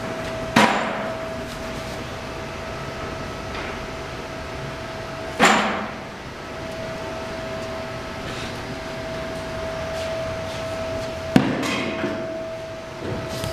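Three sharp metallic bangs, about five and six seconds apart, each ringing out briefly, over a steady hum with a constant whine.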